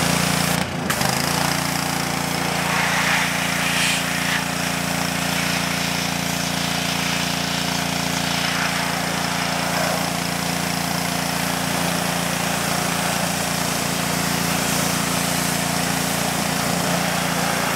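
Pressure washer running steadily, its water jet hissing as it blasts a stripped metal computer case.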